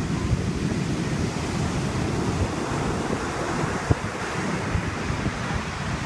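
Heavy storm surf breaking and washing up the beach in a steady roar, with wind buffeting the microphone as a flickering low rumble. A brief knock about four seconds in.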